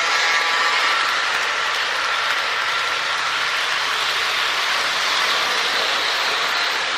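HO-scale model train cars rolling past close by on plastic roadbed track: a steady, even rush of small wheels on the rails, a little louder in the first second.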